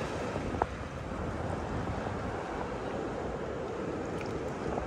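Steady rumbling noise inside a car cabin driving over beach sand: tyres and engine, with one short click about half a second in.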